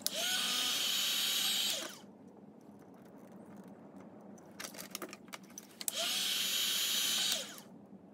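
Handheld electric heat gun switched on twice, running about two seconds each time: a fan-motor whine rising as it starts, a steady rush of air, then falling away as it shuts off. Light clicks of plastic tubing and fittings being handled in between.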